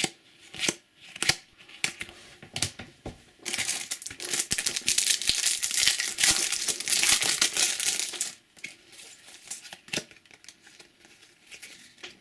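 Foil trading-card booster packet crinkling as it is handled and torn open, a dense crackle lasting about four seconds in the middle. Before and after it come light taps and flicks of cards being handled.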